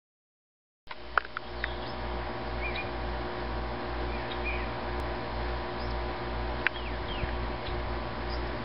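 A steady hum with a low throb about twice a second starts suddenly just under a second in. Over it come a few faint bird chirps and a couple of sharp clicks.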